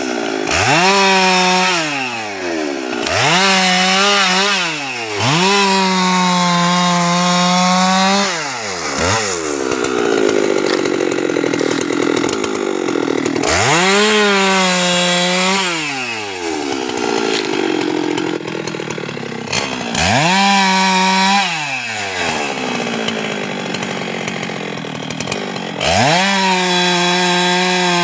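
Husqvarna 390XP two-stroke chainsaw cutting teak, revved to full throttle about six times: each time the pitch climbs, holds and falls away, with rougher, lower-pitched stretches in between.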